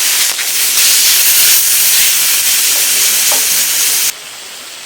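Beef steak sizzling loudly as it fries, a steady hiss that stops suddenly about four seconds in, leaving a much fainter hiss.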